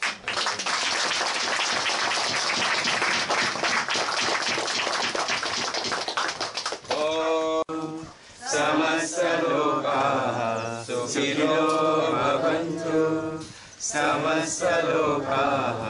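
Applause for about seven seconds, then a group of voices chanting a mantra in long, held phrases with brief breaks between them.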